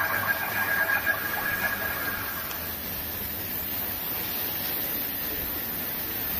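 Unexplained 'strange sky sound' at night: a drawn-out, wavering groaning tone, likened to the sky snoring, that fades out a few seconds in over a steady hiss.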